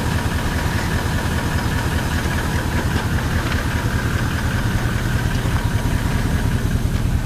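Vehicle engine idling steadily, with an even low pulsing.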